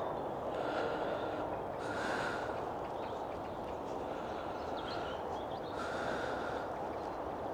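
A man's slow, regular breaths, one soft breath every second or two, over a steady rushing background.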